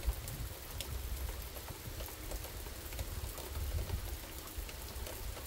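Heavy rain falling: a steady hiss dotted with the ticks of individual drops, over a low, uneven rumble of gusting wind.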